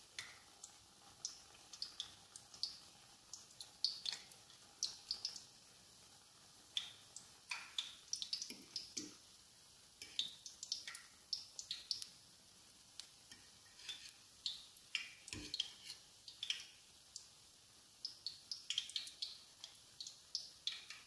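Pumpkin fritters deep-frying in hot peanut oil: irregular crackling pops and spits over a faint sizzle. One low knock comes about three quarters of the way through.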